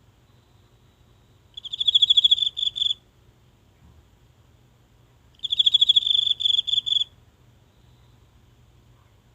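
A single insect singing two high-pitched, pulsing trills of about a second and a half each, the second starting about four seconds after the first, each breaking into a few separate pulses at its end.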